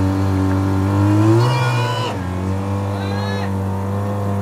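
Fire pump engine running steadily at speed, its pitch rising briefly about a second in and then settling. Two short shouted drill calls ring out over it.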